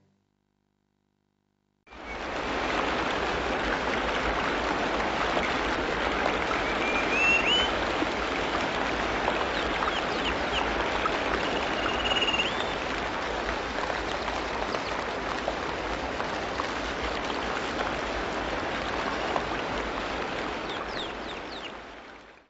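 Monsoon rain falling steadily, starting about two seconds in and cutting off near the end. A bird chirps briefly twice.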